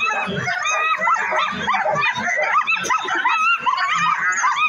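A crowd of harnessed sled dogs barking, yipping and whining together without a break, many overlapping high-pitched calls, the excited din of sled dogs eager to run at a race start.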